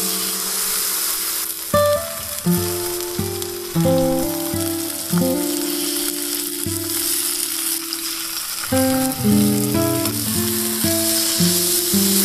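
Beef steak frying in a skillet, a steady, dense sizzle. Soft plucked guitar music plays underneath.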